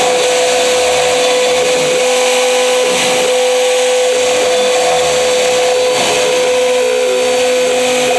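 CNC router cutting a carving: the spindle runs with a steady high whine over the hiss of the cut. Underneath, lower whirs slide up and down in pitch as the machine moves.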